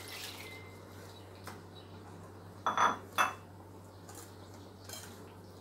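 Wire whisk clinking against a glass mixing bowl as batter is whisked: a few scattered clinks, the loudest two close together about three seconds in, each ringing briefly.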